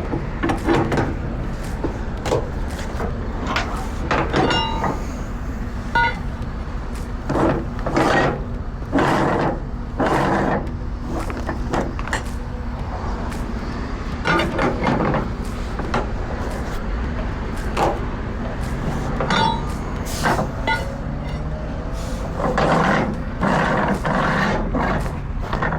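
A truck's diesel engine idling steadily, with scattered metallic clanks and knocks throughout.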